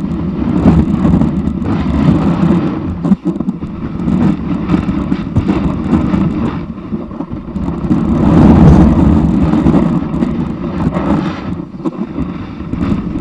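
Snowboard sliding and carving over snow, a loud low scraping rumble carried straight into the board-mounted camera, with wind on the microphone; it swells and eases with the turns, and a sharp knock comes about three seconds in.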